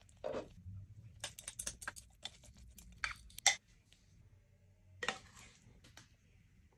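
Slow cooker's glass lid lifted off the crock with a soft knock, followed by a run of quick clicks and taps of kitchen handling, loudest about three and a half seconds in, and another short clatter about five seconds in.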